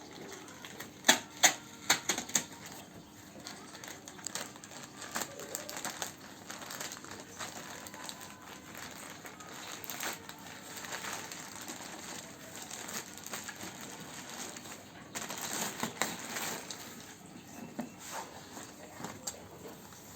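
Packaging being handled and opened: crinkling and rustling with many scattered clicks and taps, and a few sharp loud clicks between about one and two and a half seconds in.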